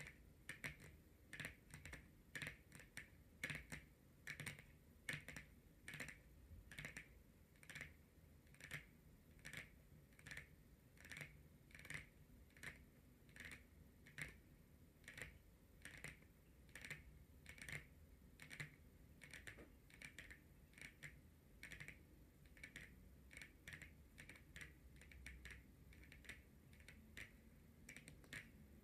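Long natural fingernails tapping on a card, probably a tarot card, in a steady run of soft, light clicks about two or three a second.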